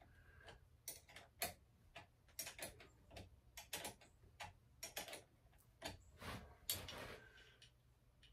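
Faint, irregular small clicks and ticks from hand work on a dirt bike's handlebar lever, about fifteen in all. There is a longer scraping rustle about six and a half seconds in.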